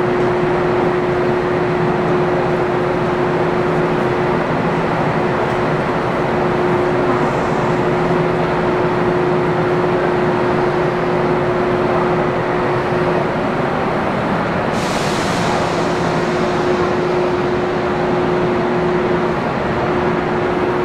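A train's steady mechanical noise with a constant hum tone, unchanging throughout. A short hiss comes about fifteen seconds in.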